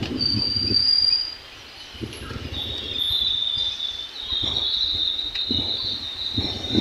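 Outdoor roadside ambience: a high, clear whistle for about the first second, then a long, steady, high-pitched buzz over a low rumble.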